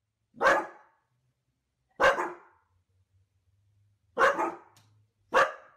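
Dog barking: four single, sharp barks about one to two seconds apart.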